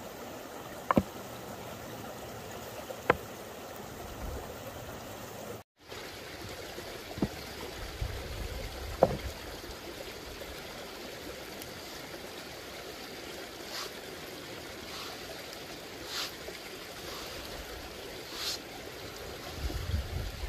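Small stream running steadily, with a few short light knocks and taps from hands working a sheet of pasta dough on a wooden board.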